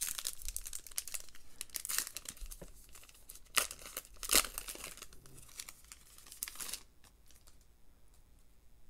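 Foil wrapper of a trading-card pack crinkling and tearing as it is opened by hand: a run of crackly rustles with two louder bursts around three and a half and four and a half seconds in, stopping about seven seconds in.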